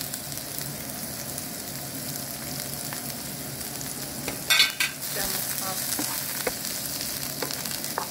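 Sliced onion, green pepper and green onion sizzling in hot oil in a non-stick frying pan, stirred with a wooden spoon. A brief loud scraping clatter about halfway through, then light taps of the spoon against the pan.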